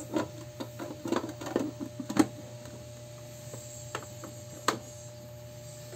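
Juicer parts being handled and fitted together: a quick run of plastic clicks and knocks, one sharp click a little after two seconds, then a few scattered clicks. A low steady hum runs underneath.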